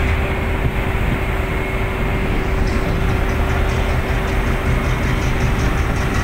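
Steady drone of ship engines and machinery, a low rumble with a constant hum. A light, fast ticking of about five a second joins about two and a half seconds in.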